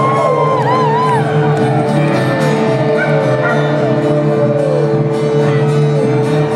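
Live rock band holding a steady chord with drums while voices howl and yelp like dogs over it, in long falling and wavering glides.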